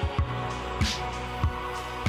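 Electronic music with a steady beat: deep kick drum hits and a crisp snare hit about a second in, over sustained synth tones.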